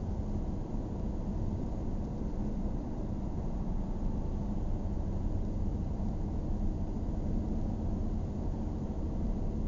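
Car driving, heard from inside the cabin: a steady low drone of engine and road noise.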